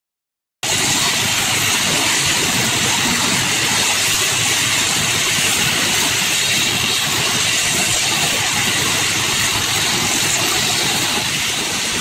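Track-maintenance machinery running steadily and loudly: hand-held tie tampers vibrating ballast under the sleepers, with their portable generator. The noise starts abruptly about half a second in.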